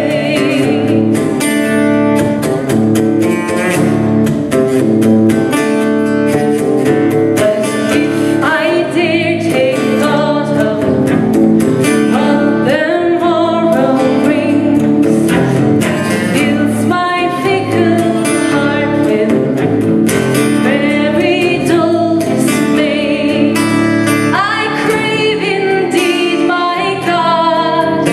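Woman singing a song into a microphone, accompanied by an acoustic guitar.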